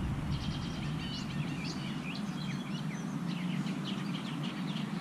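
Small birds chirping and twittering in quick short calls, several a second, over a steady low background hum.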